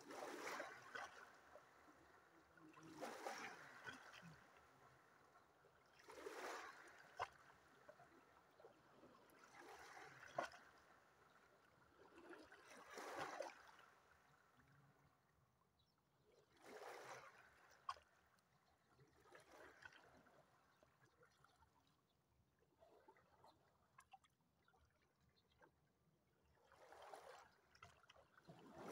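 Small sea waves washing in over a rocky, pebbly shore, a faint swell of water noise every few seconds, with a few sharp clicks.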